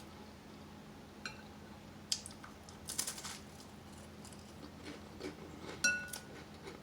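Spoon clinking lightly against a glass soup bowl several times, two of the clinks ringing briefly, with soft eating sounds between.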